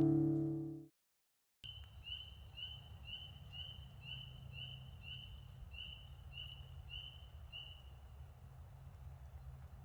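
Acoustic guitar music fading out in the first second, then a songbird repeating a short high note about a dozen times, roughly two a second, over a low steady outdoor rumble.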